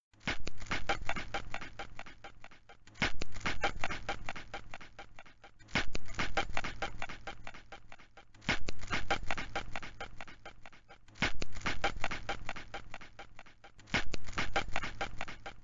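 Metal chain rattling and clinking, the shackle-chain sound effect of a slave's chains. It plays six times, about every three seconds, each time starting sharply and trailing off into lighter jingling.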